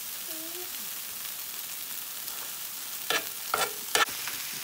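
Halved black tiger shrimp with butter and cheese frying in a pan, a steady sizzle. Three short clinks come near the end.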